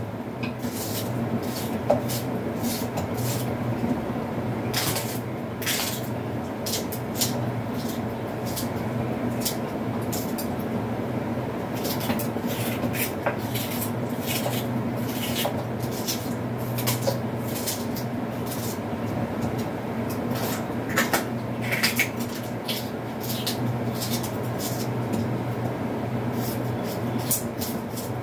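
A kitchen knife cutting onion, sweet pepper and scallion held in the hand over a bowl: irregular crisp clicks and snicks, over a steady low hum.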